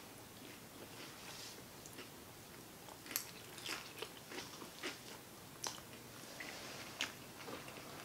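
Close-miked chewing of a Flamin' Hot Cheeto burrito: scattered soft crunches and wet mouth clicks, coming more often past the midpoint.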